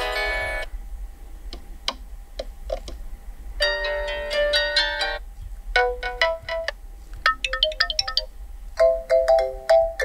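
Built-in ringtones of a Nubia RedMagic 7S phone previewed one after another through its speaker: short musical snippets of chimes, chords and plucked rising notes. Each is cut off after a second or two as the next ringtone is selected.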